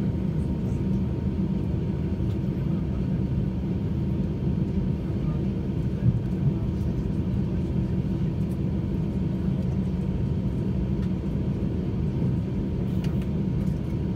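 Steady low rumble of an airliner cabin while the aircraft rolls slowly after landing, its engines at idle. There is one brief knock about six seconds in.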